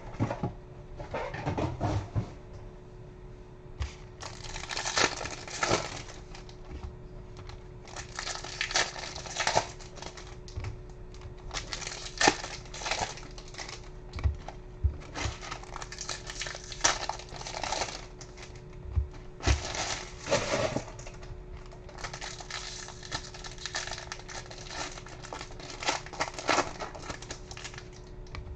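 Foil trading-card pack wrappers and box packaging crinkling and rustling in bursts as a box of packs is opened and handled, with scattered small clicks and a faint steady hum underneath.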